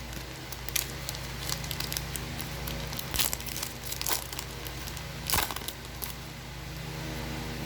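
Foil trading-card booster pack wrapper crinkling and tearing as it is opened, with a few sharp crackles.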